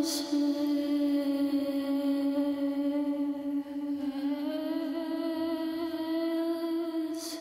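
Drone from an experimental soundtrack: one held, hum-like tone with many overtones that shifts slightly in pitch about four seconds in, with a brief high hiss near the start and again near the end.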